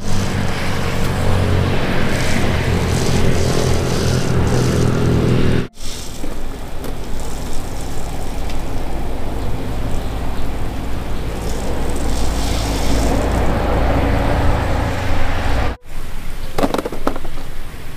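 A motor vehicle's engine running steadily, the sound breaking off abruptly twice for an instant.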